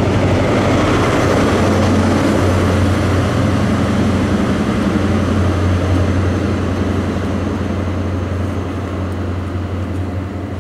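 First Great Western InterCity 125 (HST) with its rear Class 43 diesel power car going past and away: a loud, steady low engine hum with wheel and rail noise over it, fading over the last few seconds.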